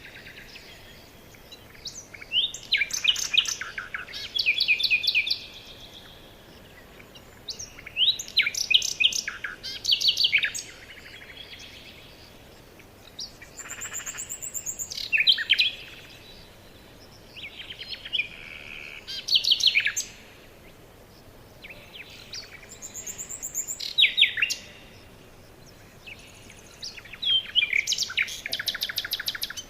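Songbirds singing in repeated phrases: about six bursts of quick, high chirps and rapid trills, each lasting two or three seconds, with short pauses between.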